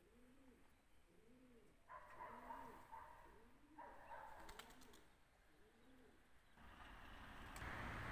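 A pigeon cooing faintly, low rising-and-falling coos about once a second. A rushing noise builds near the end and becomes the loudest sound.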